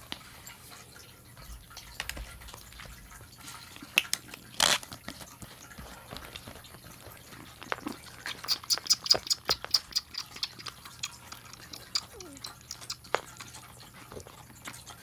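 Month-old kitten suckling at the rubber nipple of a milk bottle: a quick run of small wet clicks and smacks about eight seconds in, after a few scattered clicks.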